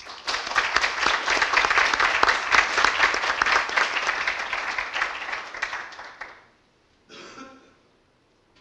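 Group applause from the assembly members, dense at first and fading away to nothing after about six seconds.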